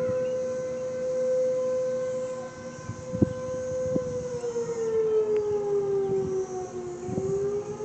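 Outdoor tornado warning siren sounding a steady tone that sags in pitch from about four seconds in and begins to climb again near the end. The pitch going up and down is something the recorder doesn't think a siren should do.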